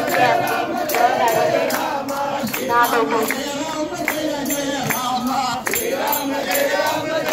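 A group singing a Hindu devotional chant, led by a man on a microphone, with hand claps and a jingling percussion keeping a steady beat.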